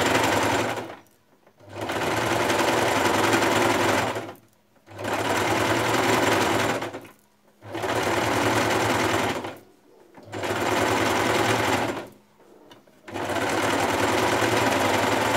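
Household electric sewing machine running a straight stitch in about six short spells of two to three seconds, stopping briefly between them, as it sews stretched elastic onto the fabric edge.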